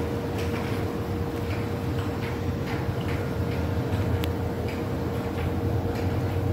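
Regular ticking, about two ticks a second, over a steady low hum.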